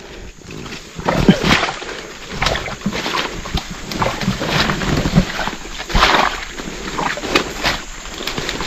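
Irregular splashing and squelching footsteps through muddy swamp water, with the hard, strained breathing of men carrying a heavy timber beam.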